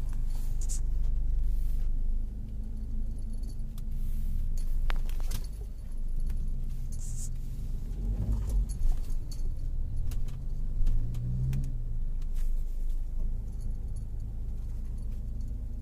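Car cabin noise while driving: a steady low engine and road rumble, with light metallic jingling and a few sharp clicks. About ten seconds in, the engine note rises briefly as the car pulls away.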